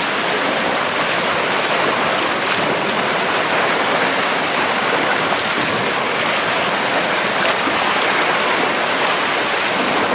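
Sea water rushing steadily against a rocky shore, an even loud hiss of surf with no distinct wave breaks.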